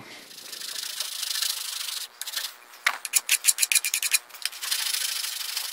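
Hand file rasping along the edge of an aluminum plate held in a vise, smoothing out a saw kerf mark. A long stroke, then a run of short, quick strokes around the middle, then another long stroke.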